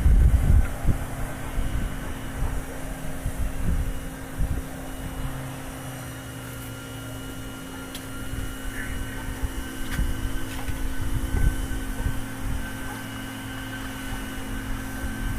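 Uneven low rumble on the microphone, strongest at the start and again near the end, over a steady low hum.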